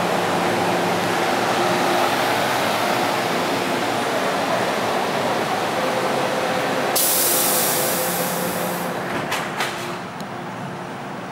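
MTR M-Train electric metro train standing at an underground platform, its equipment humming steadily. A steady warning tone starts about six seconds in, a sharp hiss follows a second later, and a few quick knocks just after nine seconds mark the train doors and platform screen doors shutting, after which the hum is quieter.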